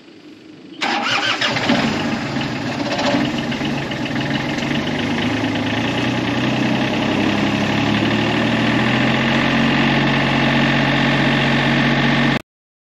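Mini excavator engine cranking and catching about a second in, then idling steadily with its pitch creeping up slightly. The sound cuts off suddenly near the end.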